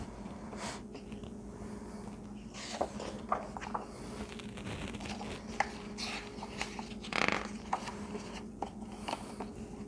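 A hardcover picture book being handled and a page turned: brief paper swishes and a few soft knocks and clicks, over a steady low hum.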